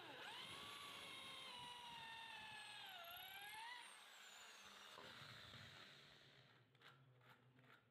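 Handheld electric drill boring into a wooden float handle: its motor whine starts suddenly, dips in pitch about three seconds in, rises briefly, then winds down after about four seconds. A few light knocks follow near the end.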